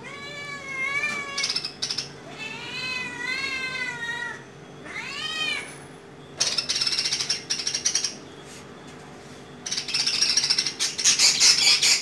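A domestic cat meows three times in the first six seconds, each call rising and then falling in pitch. Two longer bursts of noisy scuffling follow, one near the middle and one near the end, as the cat paws at a birdcage.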